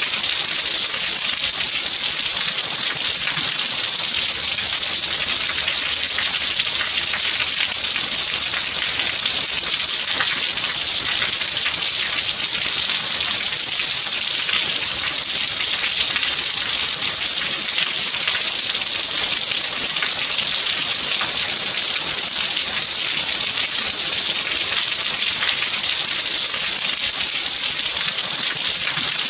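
Steady rain falling: an even, unbroken hiss with a fine patter of drops on a surface.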